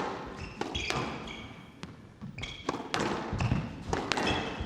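Squash rally: the ball cracks off rackets and the court walls in a string of sharp strikes, with trainers squeaking on the wooden court floor between shots.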